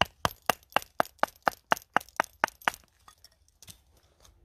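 Pine kindling being split into thinner sticks on a wooden chopping block. It gives a quick, even run of about a dozen sharp cracking knocks, about four a second, then a few fainter knocks near the end.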